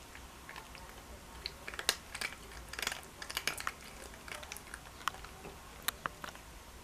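A cat eating soft food off a plate: quiet, irregular chewing and wet mouth clicks, busiest in the middle.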